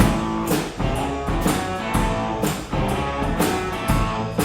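Rock band playing an instrumental intro: guitar and bass over a steady drum beat of about two beats a second.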